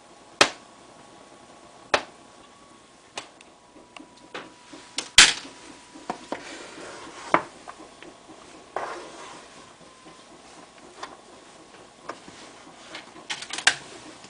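A rice paddle knocking against a wooden sushi tub and scraping through sushi rice as the rice is turned: a scatter of sharp clacks, the loudest about five seconds in and a quick run of them near the end, with softer scraping between.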